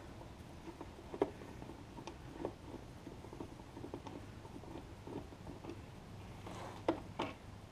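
Faint, scattered small clicks and scrapes of hand work on tiny screws in a scooter's plastic bodywork, with a few sharper ticks about a second in and again near the end.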